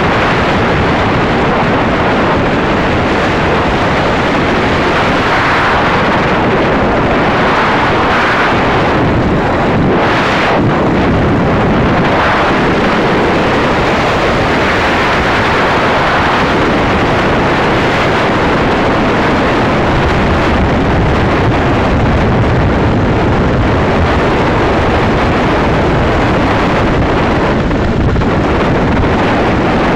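Loud, steady wind rush on the microphone of a Honda motorcycle riding at speed, with the motorcycle's running and road noise underneath.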